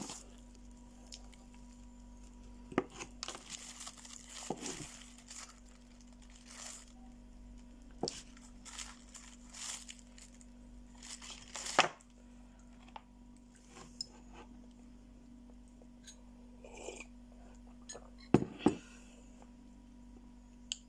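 Eating handling sounds: a plastic bag crinkling and scattered clicks and knocks of a spoon against a mug, the sharpest about twelve seconds in and a quick cluster near the end. A faint steady hum underneath.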